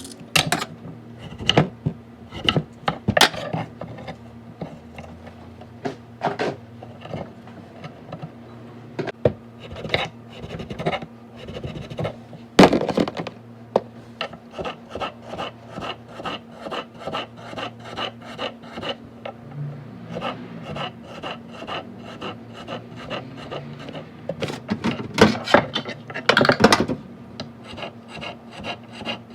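Rhythmic scrubbing, quick even strokes at about two or three a second, with a few louder knocks and clatters, the loudest about halfway through and again near the end. A steady low hum runs underneath.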